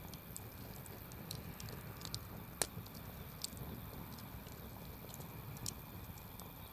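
Campfire crackling: irregular sharp pops and snaps from the burning wood, one louder pop about two and a half seconds in, over a low steady rumble.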